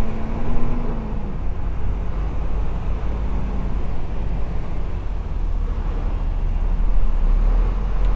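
Semi-truck diesel engine running steadily, its sound strongest in the low range, with a faint brief whine near the start.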